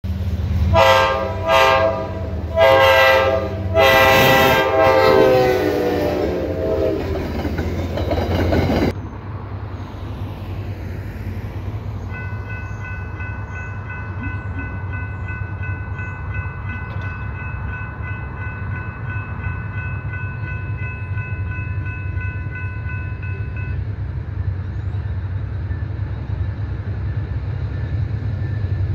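Train horn sounding several loud blasts, the last one long and dropping in pitch as the train passes, cut off abruptly about nine seconds in. Then a level crossing's warning bell rings steadily for about twelve seconds and stops, over a low steady rumble.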